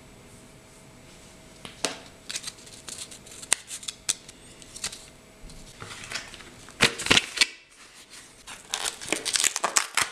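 MRE ration packaging being handled on a table: foil pouches and a cardboard box crinkling and rustling, with scattered clicks and taps. The loudest crinkling comes about seven seconds in, and a dense run of it near the end.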